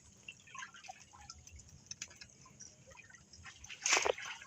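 Water dripping and trickling, with scattered small drips and one brief, louder splash near the end.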